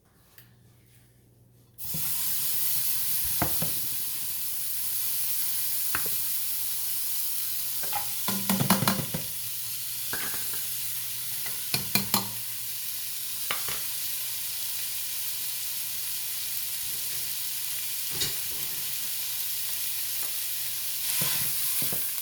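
Ground beef with chopped onions and bell pepper starting to sizzle in a hot pot, the hiss starting suddenly about two seconds in, as the beef goes in to brown. A spoon knocks and scrapes against the pot now and then, with a cluster of clacks about halfway through.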